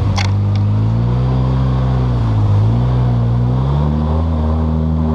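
Polaris Sportsman 700 ATV engine running under throttle, its pitch rising, dipping about halfway through and climbing again as the rider eases off and opens it up on a muddy, water-filled trail. A brief high hiss comes just after the start.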